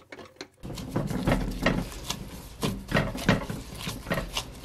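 A plastic-gloved hand kneading soft yeast dough in a stone pot: irregular rustling, squishing and pressing strokes of the glove and dough against the pot, growing louder about half a second in.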